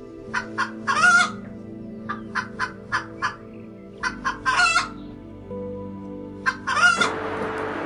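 Hen cackling: three runs of short clucks, each ending in a longer squawk, over quiet background music.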